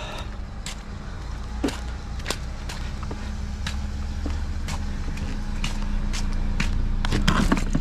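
Idling vehicle engine, a low steady hum that grows gradually louder, with footsteps and scattered clicks on wet pavement.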